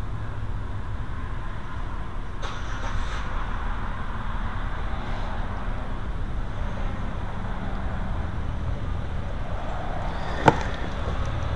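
Steady low rumble of outdoor background noise, with one sharp click about ten and a half seconds in.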